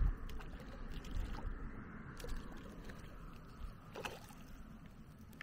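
Water lapping and swishing steadily, with a few faint soft ticks.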